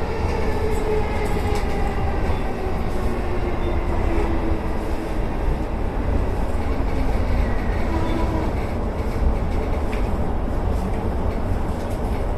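Electric commuter train running on the rails with a steady low rumble. Its traction motor whine falls slowly in pitch as the train brakes on the approach to a station.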